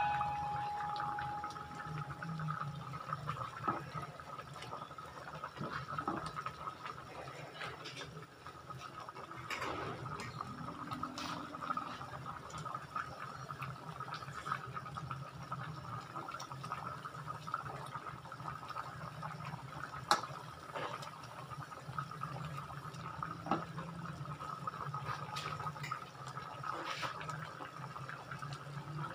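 A thick tomato-sauce chicken stew boiling in an open pot: a steady bubbling with scattered small pops. In the first few seconds a metal ring from the pot lid fades out.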